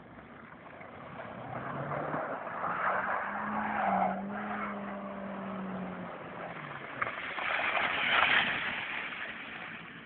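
Opel Omega A Caravan's 2.0-litre four-cylinder C20NE engine pulling under throttle as the car drives through snow, its pitch rising, holding, then dropping away about six seconds in. Tyre noise from the snow and slush swells twice, loudest near the end as the car passes close.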